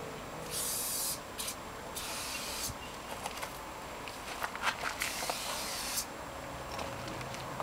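Aerosol spray paint can hissing in three separate bursts, with scattered light clicks between them.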